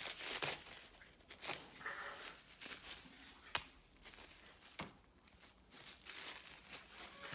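Plastic wrapping being crinkled and torn as a parts package is unwrapped, with a few sharp clicks.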